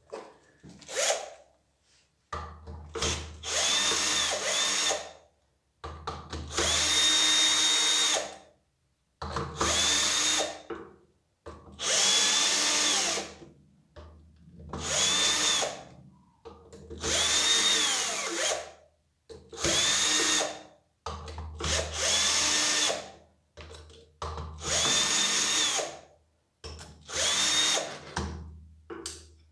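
Cordless drill-driver running in a series of short runs of one to three seconds, its motor whine rising as each run starts. It is backing out the screws that hold the pump to the motor of a pressure washer.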